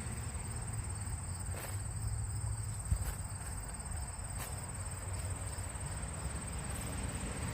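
Insects trilling in one steady high-pitched note, with a few faint taps and a low rumble underneath.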